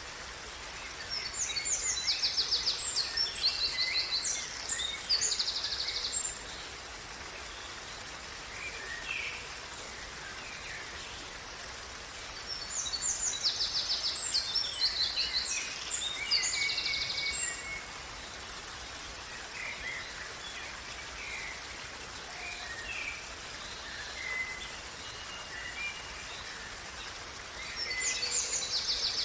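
Small brook running with a steady hiss, and songbirds singing over it: rapid, high trilled song from about a second in, again around the middle and once more near the end, with scattered short chirps in between.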